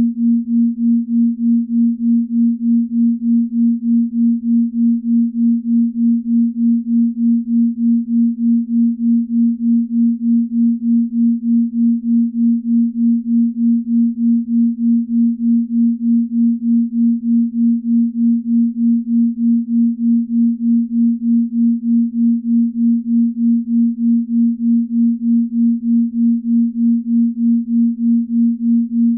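Binaural-beat tone: a single steady low pure tone a little under 250 Hz that pulses evenly in loudness about two to three times a second, the beating of two slightly detuned tones at a slow, deep-sleep rate.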